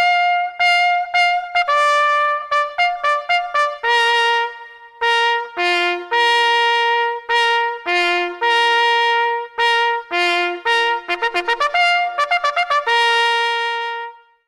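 A solo brass horn playing a military-style bugle call, using only a few notes of the horn's natural series: bursts of quick repeated notes alternating with long held notes. It fades out near the end.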